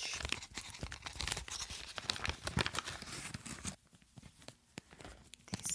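Close-up crinkling and rustling, thick with small sharp clicks, as jewellery and its crinkly packaging are handled. It quietens to a few scattered clicks for about a second and a half near the end, then grows louder again.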